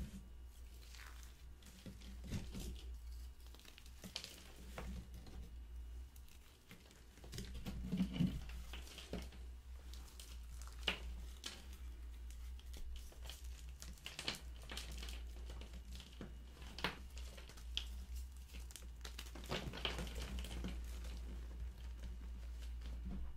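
Hands crushing and crumbling a dried slab of gym chalk into powder: irregular dry crunches and crackles, with softer powdery squishing between them. A steady low hum runs underneath.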